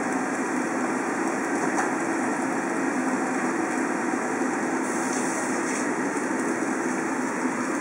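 A steady machine hum with a rushing noise, like a motor or fan running, level and unchanging throughout.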